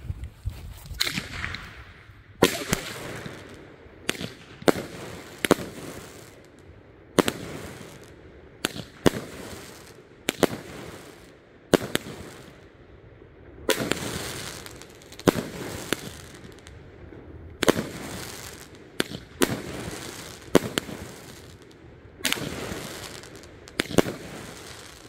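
A 500-gram consumer fireworks cake ("Nightcrawler") firing shot after shot. A sharp bang comes roughly every second, each trailing off in a short fading noise, and the barrage keeps going steadily.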